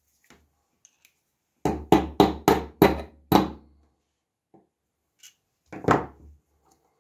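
Metal tapping on a blind rivet against a marble block: six quick, sharp strikes in under two seconds, then one more strike near the end, with faint handling clicks in between.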